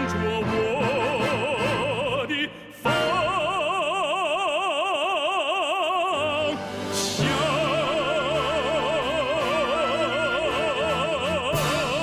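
Closing theme song sung in an operatic style with accompaniment: a voice holding long notes with wide vibrato. It breaks off briefly about two and a half seconds in, then holds two more long notes.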